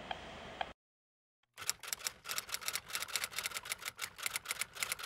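Steady hiss that cuts off under a second in; after a short silence, an RF meter's audio output renders the Bluetooth earpiece's pulsed microwave signal as a rapid, irregular train of clicks, about six a second.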